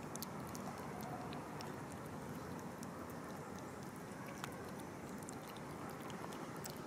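Two kittens eating wet cat food from a plastic tray: many small, quick chewing and smacking clicks over steady background noise.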